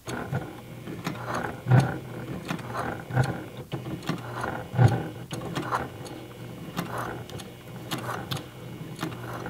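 Brother PQ1500S straight-stitch sewing machine running steadily, stitching a denim jeans hem with heavy jeans thread: a motor hum with rapid needle clicks and two louder knocks in the first half.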